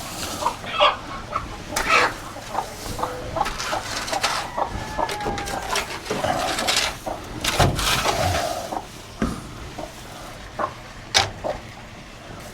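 Chickens clucking and squawking in short calls, mixed with scattered knocks and clicks.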